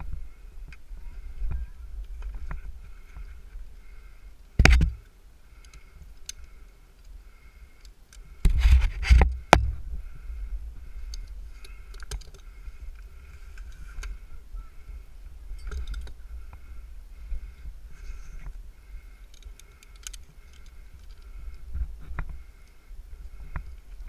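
Climbing rope and gear scraping, rubbing and clinking against the tree trunk as a climber shifts on the rope, picked up by a helmet-mounted camera, with a steady low rumble. A sharp knock comes about a fifth of the way in, and a louder scuffle of about a second follows a few seconds later.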